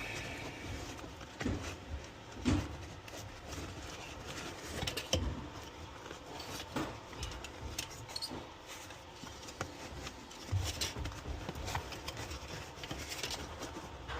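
Irregular knocks, taps and rustling from hands-on installation work, with a few louder thumps spread through.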